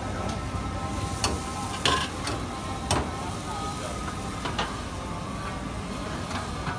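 Metal ladle clinking against a wok and pot about five times, two of the clinks louder, over steady frying sizzle.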